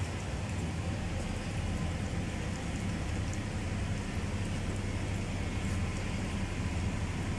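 Steady low electrical hum under an even hiss, from a running electric machine.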